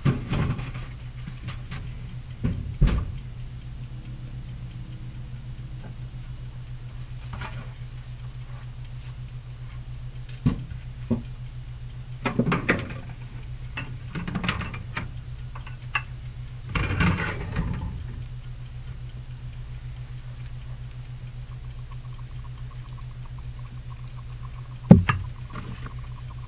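Scattered knocks and clatters of a metal baking sheet and oven door being handled as the eggplant goes back into the oven, over a steady low hum. The sharpest knock comes near the end.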